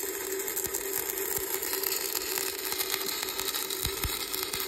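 Electric welding arc from a Bestarc MIG145 inverter welder crackling and sizzling steadily as a bead is run on steel square tubing, with a steady hum underneath.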